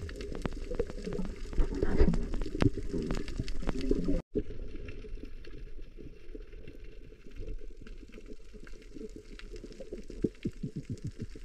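Underwater sound on a coral reef: gurgling and bubbling, strongest in the first few seconds as bubbles rise from a freediver's snorkel, with many sharp clicks and crackles throughout. Briefly cut out about four seconds in.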